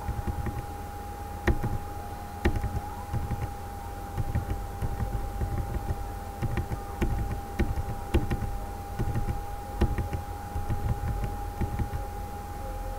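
Irregular clicks and taps from a laptop being operated while a list is scrolled, over a steady thin whine and a low rumble.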